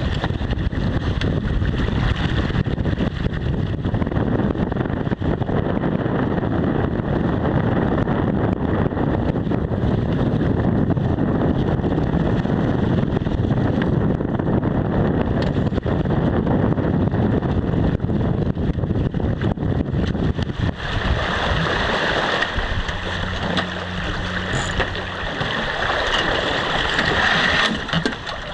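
Strong wind buffeting the microphone, with water rushing past the hull of a small sailboat under sail. About 21 seconds in, the low wind rumble eases and a brighter hiss of water takes over.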